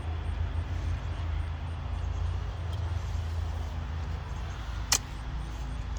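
A steady low rumble, with one sharp click about five seconds in.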